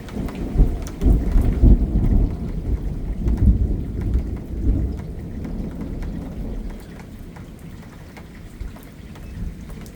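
A long rumble of thunder, loudest in the first few seconds and dying away by about halfway through, over steady falling rain.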